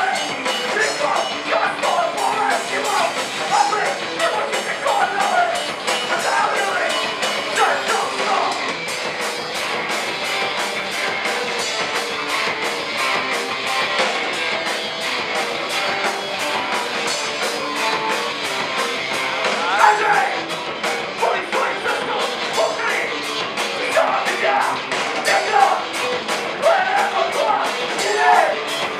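Hardcore punk band playing live: distorted electric guitar and fast drumming with cymbals, with shouted vocals in parts.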